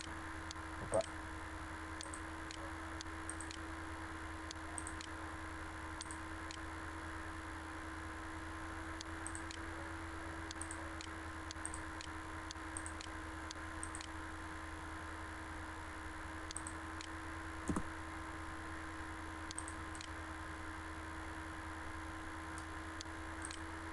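Computer mouse clicking, a scattered run of faint short clicks at an irregular pace, over a steady electrical hum and hiss. A couple of slightly louder knocks come about a second in and again about three quarters of the way through.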